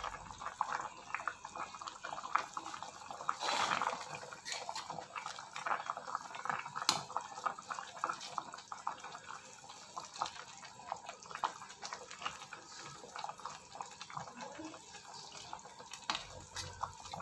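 Fish soup simmering in a wok: a steady bubbling made of many small pops and ticks, with a few louder clicks and splashes.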